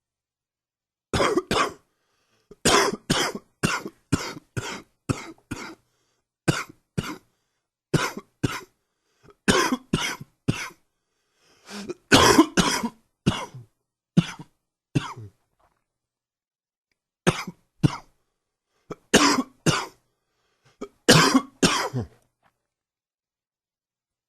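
A man with a cold coughing in a fit: short, sharp coughs in quick runs of two to seven, with brief pauses between runs, the strongest run about halfway through.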